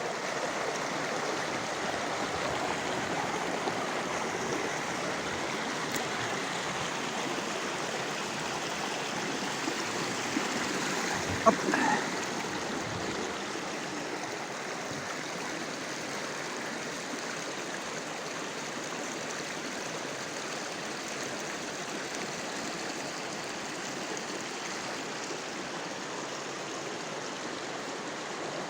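Steady rushing of a river or stream. A brief sharp sound comes about twelve seconds in.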